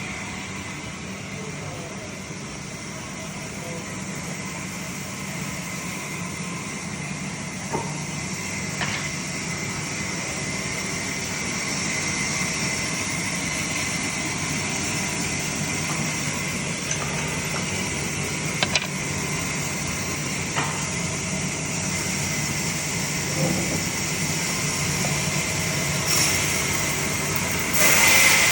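Sawmill machinery running steadily, a continuous mechanical hum and hiss with a few sharp clicks and knocks, growing gradually louder with a louder step near the end.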